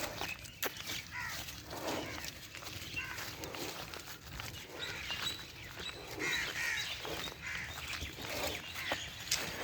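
Birds calling over and over in short, chirping calls, with farm livestock around.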